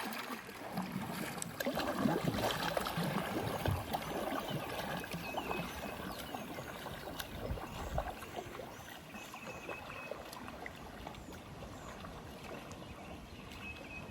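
Water sloshing and dripping around a Dagger Zydeco 9.0 recreational kayak and its paddle as it is paddled on flat water, with uneven surges that are busier in the first few seconds and then settle.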